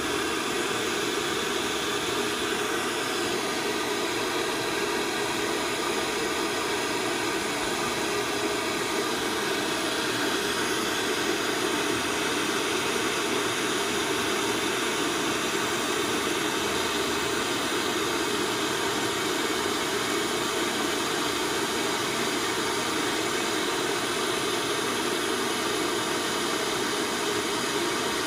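Gas torch flame burning steadily, a constant rushing hiss that never changes in level.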